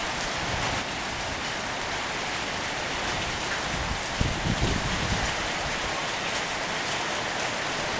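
Rain falling steadily in a summer storm, with strong gusts of wind buffeting the microphone about four seconds in.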